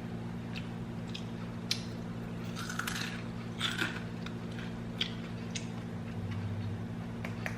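Someone eating crispy roast pork (lechon): a series of short crunches and chewing sounds at irregular moments, over a steady low hum.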